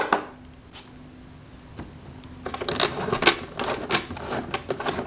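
A single click, then from about two and a half seconds in a quick run of clicks, taps and plastic rustling as toy packages are handled and set on a toy electronic cash register.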